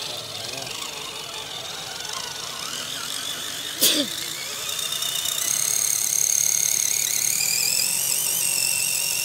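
Electric motor and geartrain of a radio-controlled scale crawler truck whining as it crawls over a dirt trail: a high-pitched whine that wavers with the throttle and rises in pitch and loudness in the second half. A single sharp knock about four seconds in.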